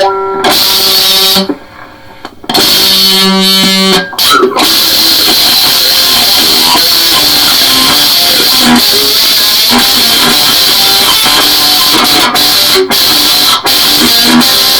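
Distorted electric guitar played loudly through an amplifier: two held notes with short breaks, then about ten seconds of dense, fast playing with a heavy, fuzzy edge.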